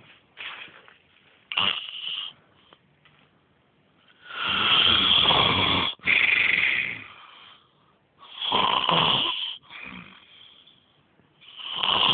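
Loud snoring: after a few faint short breath sounds, four long snores from about four seconds in, the first two back to back and the rest about three and a half seconds apart.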